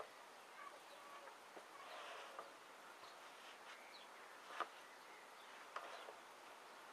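Near silence with a few faint creaks and taps from a sock-clad foot moving in and out of clear plastic-upper Converse All Star sneakers, the clearest two close to the end.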